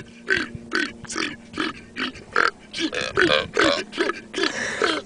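A person burping the alphabet: a quick run of about a dozen short burped letters, two or three a second.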